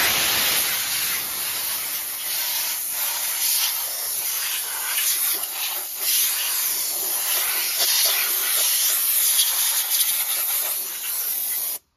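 Compressed air blowing steadily from an air-compressor blow nozzle, a continuous loud hiss as it blasts dirt off an old industrial sewing machine, cutting off suddenly near the end.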